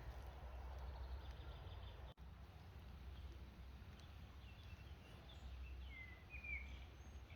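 Quiet forest ambience: a low wind rumble on the microphone with a few faint, short bird chirps, the clearest a pair about six seconds in.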